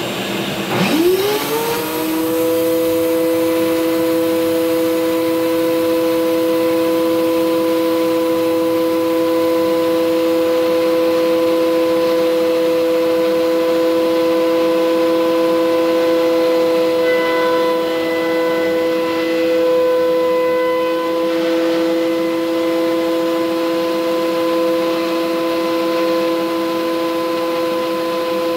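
An electric power tool's motor spins up about a second in, its pitch rising quickly, then runs at a steady speed with a constant whine and no sign of being loaded by a cut.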